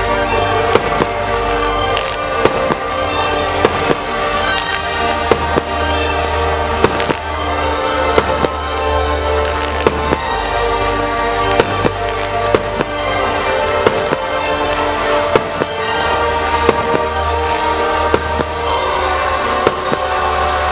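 Fireworks display: aerial shells bursting in frequent sharp bangs, over steady music played along with the show. Recorded through a camera's built-in microphone.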